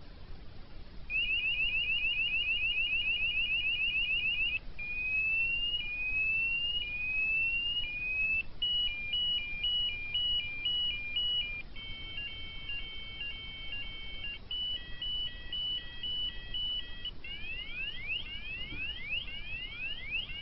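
Bosch car sounder driven from a laptop through an amp, playing a run of electronic fire-alarm tones like those of a Roshni low-profile sounder. A fast warble starts about a second in, then come slow rising whoops, then alternating two-tone and multi-tone beeping, and finally quick rising sweeps, with the pattern changing every few seconds.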